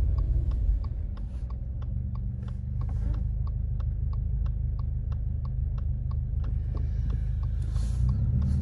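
Car engine running at low speed, heard as a steady low rumble inside the cabin, with the rapid, regular ticking of the turn signal as the car pulls out from a stop sign and turns.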